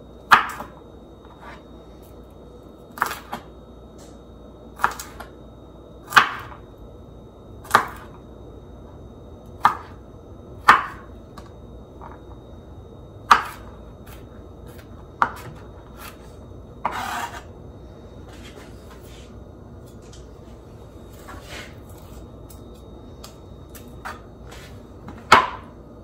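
Chef's knife chopping garlic cloves on a plastic cutting board: slow, separate knocks of the blade on the board, a second or two apart, with one longer, rougher stroke about two-thirds through.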